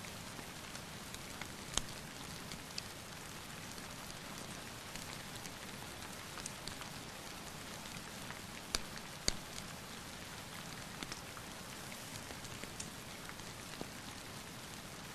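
Steady rain mixed with a crackling wood fire, its sharp pops scattered through, the loudest one about two seconds in and a pair half a second apart near the middle.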